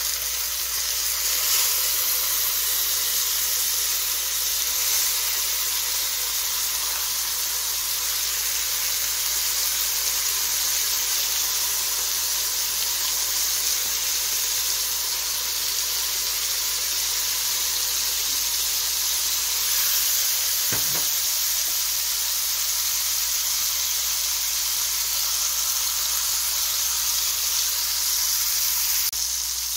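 Mackerel fillets and soy sauce marinade sizzling in a hot stainless steel frying pan as the marinade is spooned over the fish: a steady high hiss, with one brief knock about two-thirds of the way through.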